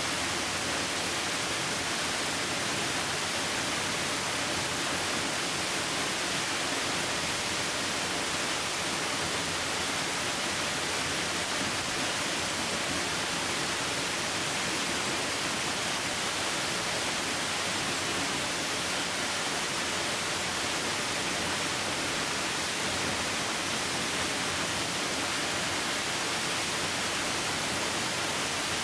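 Waterfall: water falling in a steady, unbroken hiss that does not change.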